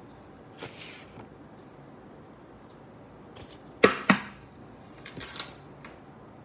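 A brief soft rustle, then two sharp clicks about a quarter second apart near the middle, followed by a few fainter taps.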